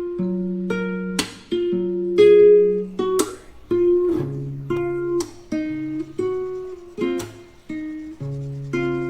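Background music on a plucked string instrument. Picked notes are broken by a sharp strummed chord about every two seconds.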